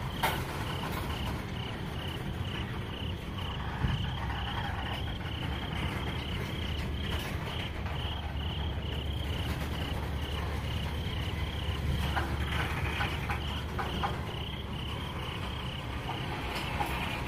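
Night insects chirping in a steady, evenly spaced rhythm, over the low rumble of freight tank cars rolling slowly on the rails, with a few sharp clanks and some metallic scraping from the wheels and couplers.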